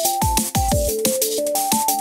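Background electronic music with a fast drum beat and a synthesizer melody.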